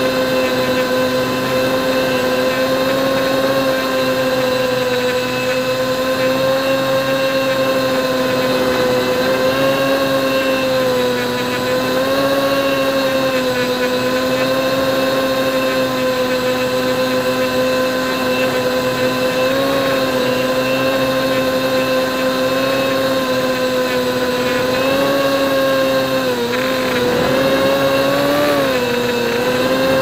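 Brushless motors and propellers of a mini carbon-fibre FPV multirotor, heard from on board, droning steadily at one pitch. A few seconds before the end the pitch dips and rises again as the throttle changes.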